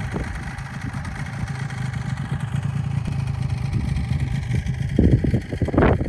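Snowmobile engine idling with a steady low hum, with a few loud gusty bursts near the end.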